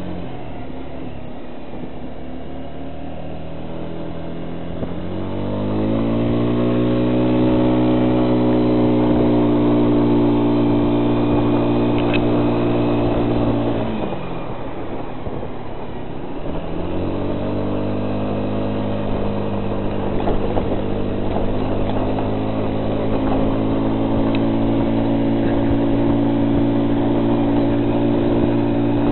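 An engine running, speeding up about five seconds in and holding steady, dropping back to a lower pitch around the middle, then speeding up again and holding.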